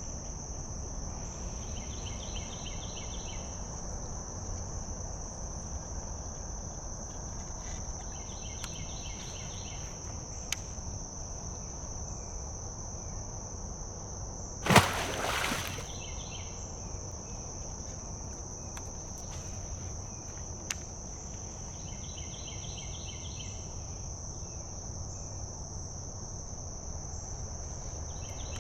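Insects trilling steadily in one high, unbroken pitch, with a softer pulsing call that comes back every six or seven seconds. A single sudden loud noise lasting about a second cuts in about halfway through.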